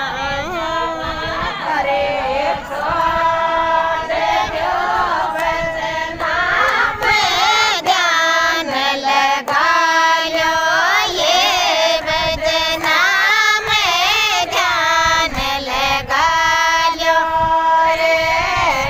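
A group of women singing a Rajasthani Shekhawati folk song (lokgeet) together in high voices, holding and bending the notes of the melody.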